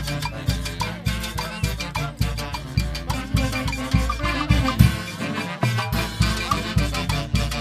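Live Latin dance band playing salsa-style music: a steady, driving beat with strong bass notes and percussion.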